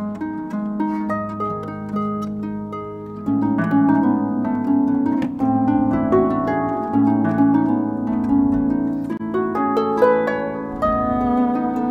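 Concert pedal harp playing a steady run of plucked notes. About three seconds in, a cello joins with long bowed low notes and the music gets louder.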